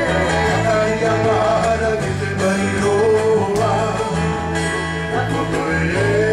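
Music: singing over plucked guitar with a steady bass line.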